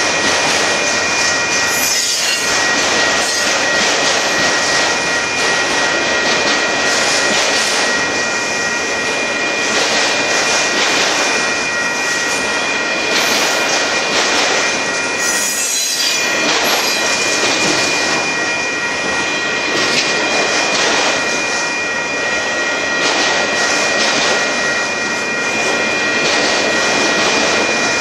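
Union Pacific manifest freight train's autorack cars rolling past: a loud, steady rush of steel wheels on rail, with steady high-pitched squealing tones over it.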